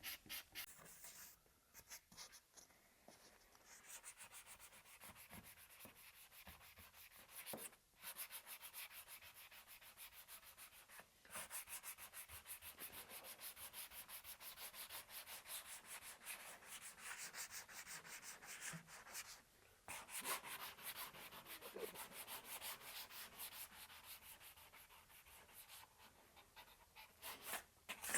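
Quick back-and-forth rubbing strokes on a wooden board, about three a second, with a few short pauses.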